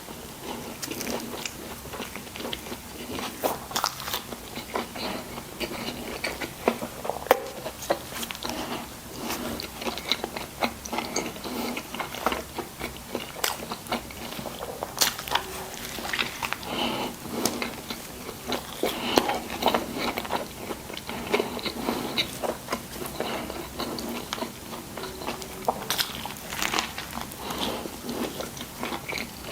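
Close-miked eating of a burger and fries: bites and steady chewing with irregular crunches and crackles.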